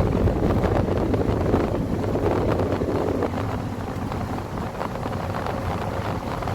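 Steady wind buffeting the microphone over a low rumble, easing slightly a few seconds in.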